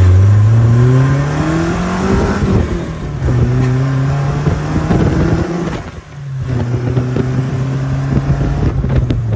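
Nissan 240SX drift car's engine accelerating, its note climbing for about two and a half seconds, then a gear change and steady running, with a short dip about six seconds in.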